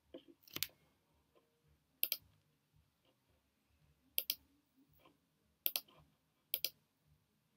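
Computer mouse clicking: about five sharp clicks one to two seconds apart, several heard as quick press-and-release pairs.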